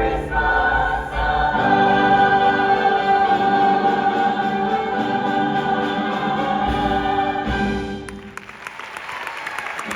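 Choir singing a Christmas piece, ending on long held chords that die away about eight seconds in. Audience applause begins right after.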